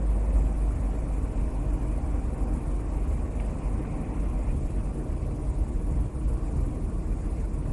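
Steady road and engine noise of a 1994 Mercury Topaz driving, heard from inside the cabin as an even low rumble.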